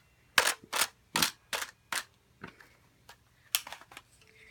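A toy gun's plastic mechanism clicking about ten times in irregular succession, the first few clicks the loudest and the later ones fainter.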